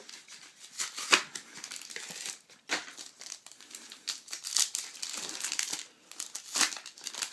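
Foil Yu-Gi-Oh! Shadow Specters booster pack wrapper crinkled and torn open by hand: irregular crackling rustles with sharp crinkles, the loudest about a second in.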